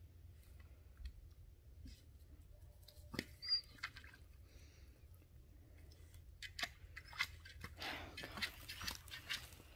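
A dog moving through dry leaves and brush and mouthing a plastic ball: scattered crunches and clicks, with a denser run of crackling near the end.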